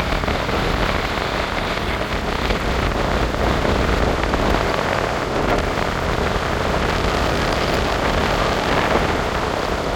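Steady rushing of a flowing river, an even, unbroken wash of water noise.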